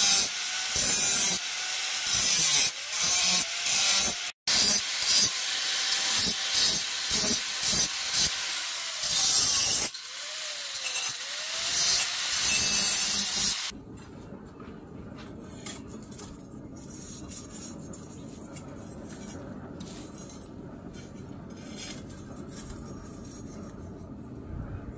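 Electric angle grinder grinding the steel edge of an axe blank cut from a tractor plough disc, in uneven surges as the disc is pressed on and eased off, its whine dipping and rising. About two-thirds through it cuts to a much quieter steady hiss with faint ticks.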